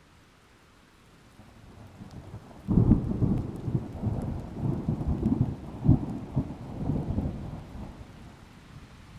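A thunderclap in a rainstorm: a low rumble builds, breaks into a loud crack about three seconds in, then rolls and crackles for several seconds before fading. A faint steady hiss of rain runs underneath.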